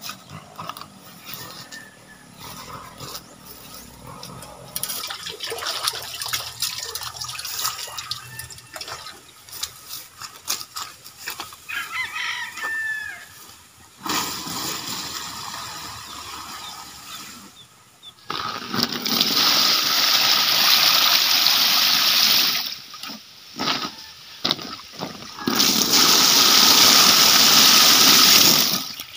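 Water gushing from a container into a shallow plastic-lined azolla pan, in two long pours of about four and three seconds that start and stop sharply.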